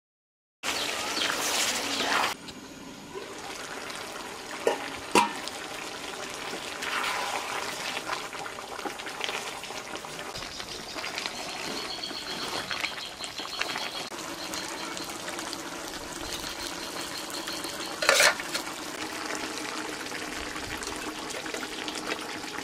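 Pointed gourd and potato curry simmering and sizzling in a metal pot, with a spoon stirring and knocking against the pot a few times. It starts suddenly about half a second in, loudest for the first two seconds.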